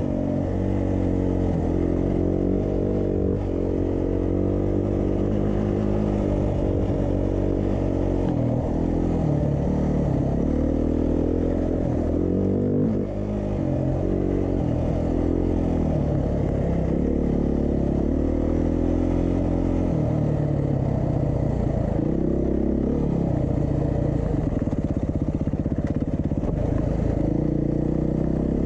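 2022 Beta 390 RR-S dual-sport motorcycle's single-cylinder four-stroke engine under way, its pitch rising and falling over and over as the rider opens and closes the throttle and changes gear.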